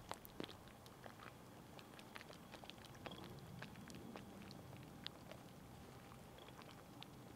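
Faint lapping of lake water at the shoreline bank, heard as scattered small clicks and plinks over a quiet background.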